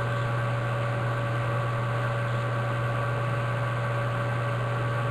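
Steady low electrical hum with a few faint constant higher tones and a background hiss, unchanging throughout; no handling sounds stand out above it.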